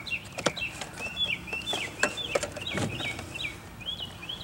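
A small bird chirping over and over, about three short high chirps a second. Scattered clicks and knocks come from hoses and plastic engine parts being handled under the hood.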